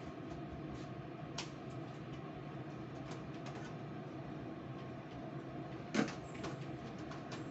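Steady background hum with scattered light clicks, a sharper knock about a second and a half in, and a louder clatter about six seconds in.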